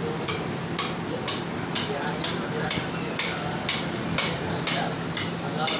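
Meat cleaver chopping into a goat carcass on a wooden chopping block, steady blows at about two chops a second.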